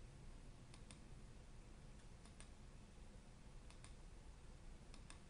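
Faint computer mouse clicks over near-silent room tone: four quick double clicks, one about every second and a half.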